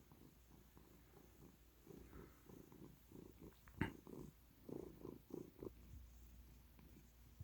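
A domestic cat purring softly, a faint low rumble in pulses, with one sharp click a little before halfway through.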